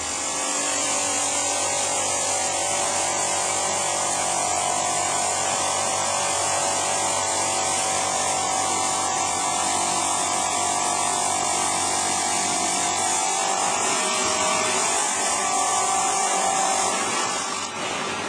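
A power saw with a diamond blade running steadily, a continuous whine with a strong high hiss, easing off near the end.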